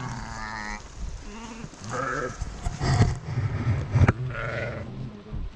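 Sheep bleating several times in short quavering calls. Two sharp knocks about three and four seconds in are louder than the bleats.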